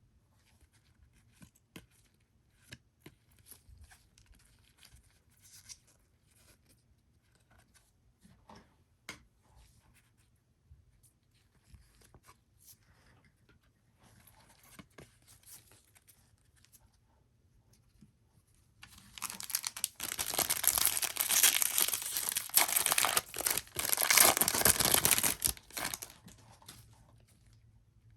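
Soft taps and clicks of trading cards being handled, then for about seven seconds near the end a loud tearing and crinkling, typical of a foil trading-card pack wrapper being ripped open.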